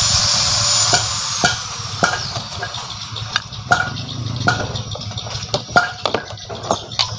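Metal tools and motorcycle engine parts clinking and knocking at irregular intervals during dismantling, after a steady hiss that fades out over the first second or two.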